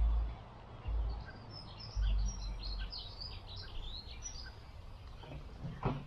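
Wind buffeting the microphone in a few heavy gusts during the first three seconds. A small songbird chirps a quick run of high notes in the middle, and a short sharp knock comes just before the end.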